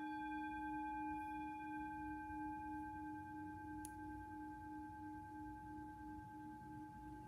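Brass singing bowl, held in the palm, struck once with a wooden striker and ringing on with several steady tones that fade slowly, the lowest one wavering in a slow pulse. A faint click about four seconds in.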